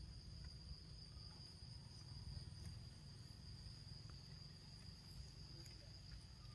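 Faint, steady high-pitched insect drone with a low rumble underneath and a few faint ticks.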